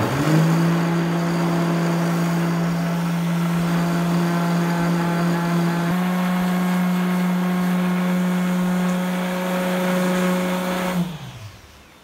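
Stanley electric sheet sander running while sanding a wooden board, a steady motor hum. It starts right away, steps up slightly in pitch about halfway through, and is switched off near the end, winding down with a falling pitch.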